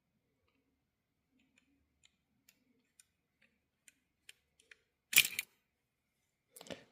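Faint, scattered small clicks of a small screwdriver and screws being worked on an HO-scale model locomotive. About five seconds in comes one short, sharp rasp as the tool slips.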